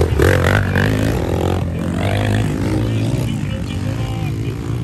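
Motocross dirt bike engines racing around the track, their revs rising and falling as the riders accelerate and back off.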